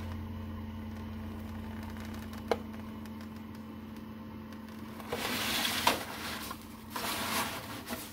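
Aluminium foil pan crinkling and scraping as it is handled and slid onto a toaster oven's wire rack, in bursts from about five seconds in, over a steady low hum. A single sharp click about two and a half seconds in.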